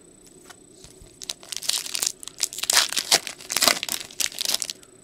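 A foil trading-card pack (2024 Bowman Baseball Hobby) being torn open and crinkled by hand. A dense run of sharp crackles starts about a second in and stops just before the end.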